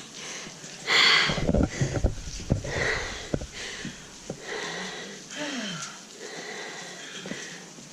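A hiker breathing hard through the nose and mouth while climbing a steep trail, in puffs of breath, the loudest about a second in.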